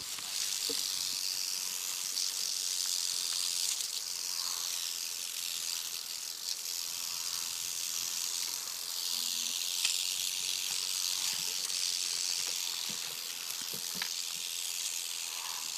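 Rattlesnake rattling its tail: a continuous high, dry buzz that swells and eases several times, the snake's defensive warning while it is being handled.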